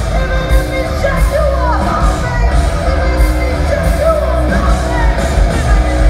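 Heavy metal band playing loud live: bass guitar, electric guitars and drums with a singer's voice over them.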